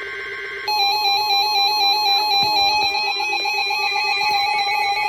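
Two RadioShack 12-261 NOAA weather radios sounding their electronic alert alarms together for a severe thunderstorm warning: loud, layered beeping, warbling tones, with a louder set of tones joining about a second in.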